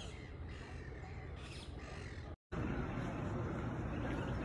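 Harsh bird calls, a few of them about a second apart, over steady outdoor background noise. They cut off abruptly about two and a half seconds in, leaving only steady background noise.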